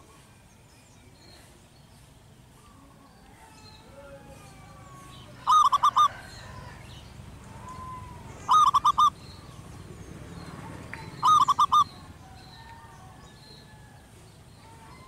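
Zebra dove cooing: three short phrases of about four quick notes each, about three seconds apart.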